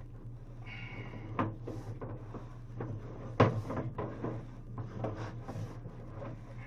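A series of knocks and clatters, the loudest about three and a half seconds in, over a steady low hum.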